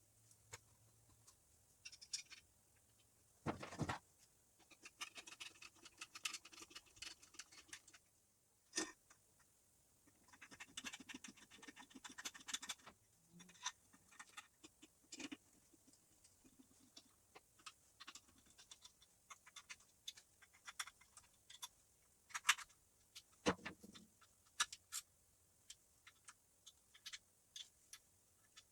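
Faint, irregular clicks, taps and short scrapes of hand tools and small parts being handled, with a few sharper knocks.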